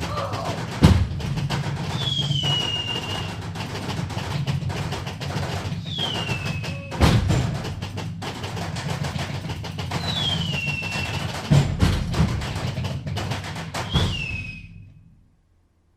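Live foley battle sound effects: a steady low rumble, with a falling whistle about every four seconds and heavy thumps, several coming shortly after a whistle, imitating incoming shells and explosions. It all fades out near the end.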